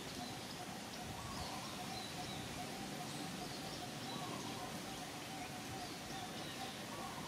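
Steady outdoor background noise with faint, repeated bird chirps throughout.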